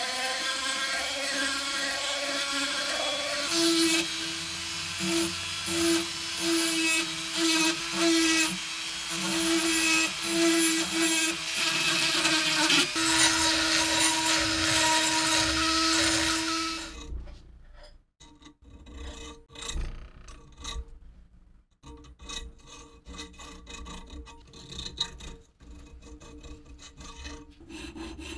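A handheld rotary tool with a small sanding drum runs at a steady whine while grinding rust off a steel bayonet, then stops suddenly about two-thirds of the way through. After that, quieter, uneven scraping strokes of a hand file on the rusty iron socket follow.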